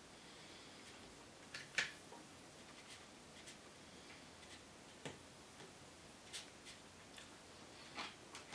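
Wooden chopsticks clicking against a thin plastic food tray: a handful of light, scattered ticks over near silence, the sharpest a little under two seconds in.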